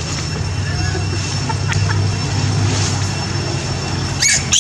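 Steady low rumble, with a few short high squeals from a baby long-tailed macaque near the end while an adult male holds it down.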